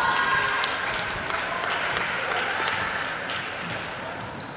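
Spectators clapping and cheering for a two-point basket just scored, dying away over a few seconds.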